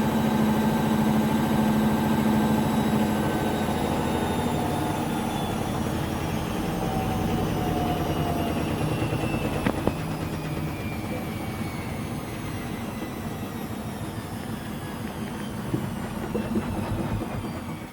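Unlevelled washing machine vibrating heavily as its drum spins down from the spin cycle: the motor whine falls steadily in pitch and the rattle slowly fades, with a sharp knock about ten seconds in. The vibration comes from the machine not being levelled.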